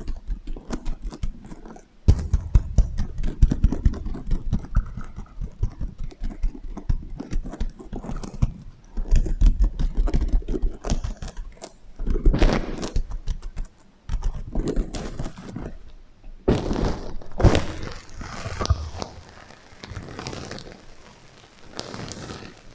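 Sequins on a heart-shaped pillow being scratched, rubbed and tapped close to the microphone: many quick clicks and scrapes with low thuds, with an echo effect added.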